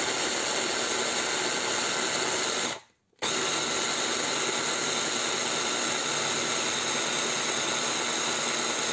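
Electric food chopper grinding walnuts. Its motor runs steadily, stops for a moment just before three seconds in, then runs again as the nuts break down toward a paste.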